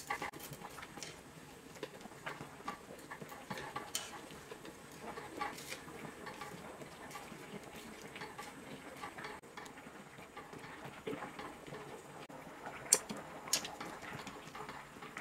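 Stainless pot of water at a rolling boil, bubbling, as dry glass noodles are dropped in and stirred with wooden chopsticks, which tick and click against the noodles and pot. Two sharp clicks about thirteen seconds in are the loudest.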